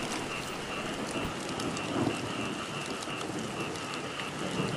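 Heavy rain falling steadily, with a steady high-pitched drone underneath.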